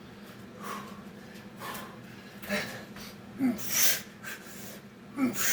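A man breathing hard from exertion mid-set of Navy SEAL burpees, with rhythmic breaths about once a second and two louder, forceful exhalations in the second half.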